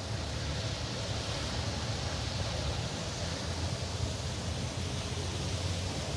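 Steady rushing outdoor noise with a constant low rumble underneath.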